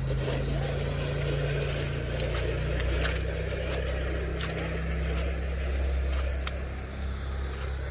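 A motor vehicle engine running steadily with a low hum, with a few faint clicks scattered through it.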